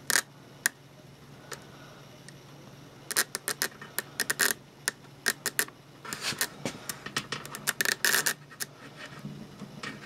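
Irregular clicking and scraping in quick clusters from about three seconds in, as an inspection camera's probe is worked against the sheet metal inside a furnace heat exchanger, with a low steady hum underneath.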